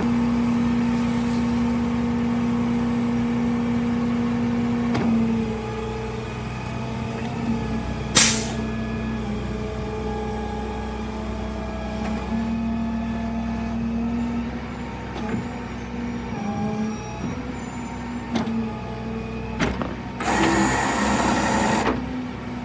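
Vehicle engine running with a steady pitched hum that shifts in pitch a few times, a short sharp hiss about eight seconds in, and a burst of rushing noise near the end.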